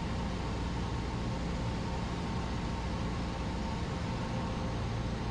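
Steady drone of a Cessna 172's piston engine and propeller in flight, heard inside the cockpit, with a constant hiss over it.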